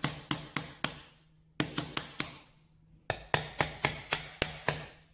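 Small hammer tapping a glued wooden finger pull down into its recess in a wooden panel: quick, light taps about four a second, in three runs with short pauses between.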